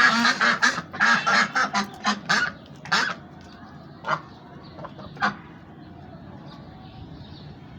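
Ducks quacking: a quick run of loud calls, then three single quacks spaced about a second apart, after which only fainter background sound remains.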